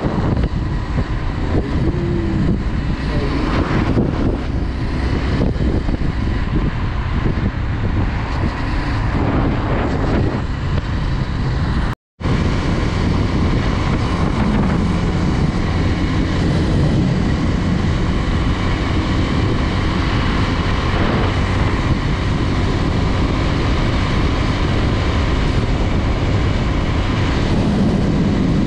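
Honda Twister 250's single-cylinder engine running under way, its note rising and falling a few times, with wind rushing over the microphone.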